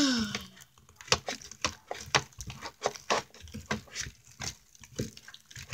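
Sticky slime being stirred and squeezed by hand, giving a run of irregular wet clicks and pops, several a second. A short falling voice sound comes at the very start.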